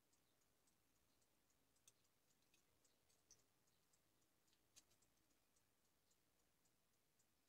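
Near silence with faint, irregular small ticks and clicks, three of them a little louder.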